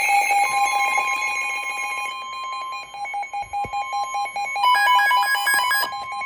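Emergency alert attention tones for a tornado warning: steady electronic alarm tones with a second, slightly higher tone joining about half a second in. From about two seconds in the sound turns to rapid, even pulsing, with a short burst of extra higher tones near the five-second mark.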